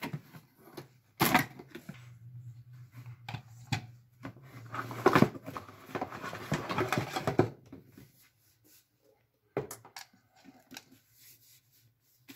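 Cardboard box and plastic packaging rustling and crinkling as a Moulinex Fresh Express grater-slicer is unpacked, with clicks and knocks of its plastic cone graters and body being handled and set down. The busiest rustling falls in the middle, and a low steady hum underneath stops about two-thirds of the way through.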